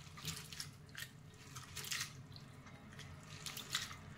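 Soaked black gram (urad) dal being rubbed and rinsed by hand in a bowl of water to loosen its husks, with light, irregular splashes of water.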